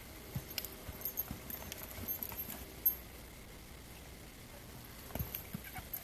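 Horse's hooves thudding and scuffing in soft arena dirt as it steps and turns, in scattered beats through the first three seconds and again near the end, with a sharp click a little before three seconds in.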